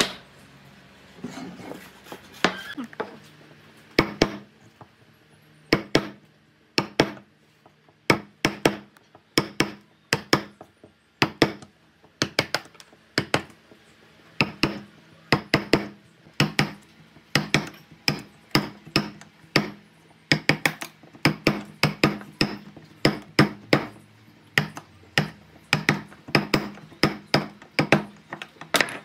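Hammer blows on wood: a long run of sharp, irregular strikes, roughly one to two a second, beginning about four seconds in after a few lighter knocks.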